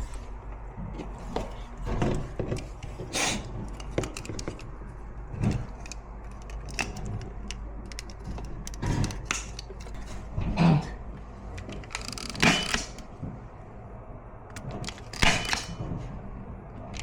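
Hand work at an electrical box: scattered clicks, knocks and rustles of tools and parts being handled, with four louder scraping or rustling noises spread through.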